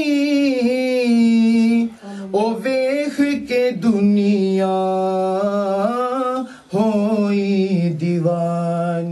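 A man singing a Punjabi naat with no accompaniment. He holds long, drawn-out notes with a wavering vibrato, each lasting a couple of seconds, with short breaks between phrases.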